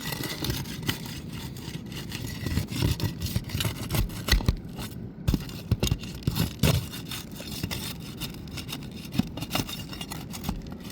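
A flat pry bar scraping and knocking against asphalt roof shingles as a shingle is worked loose and lifted, with scattered thumps, the loudest about four and six and a half seconds in.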